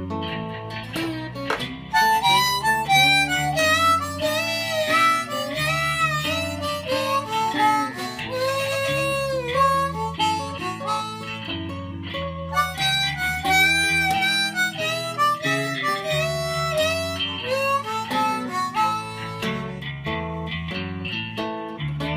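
Harmonica playing a melody with bent, sliding notes over a strummed acoustic guitar, an instrumental break; the harmonica comes in louder about two seconds in.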